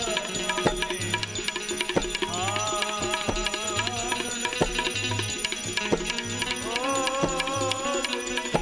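Indian devotional bhajan music: a gliding melodic line over a steady hand-drum beat with sharp percussion strokes.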